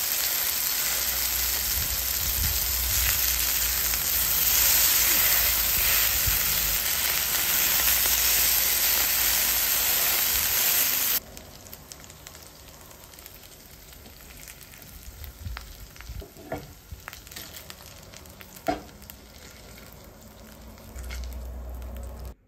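Beef patties sizzling loudly in hot oil in a frying pan. About eleven seconds in, the sizzle drops suddenly to a much quieter crackle, with a few light knocks of wooden spatulas against the pan as the patties are turned and lifted out.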